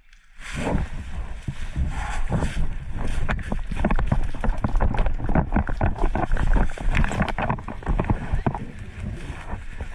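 Wind buffeting the microphone, with dense, irregular rustling and knocking throughout.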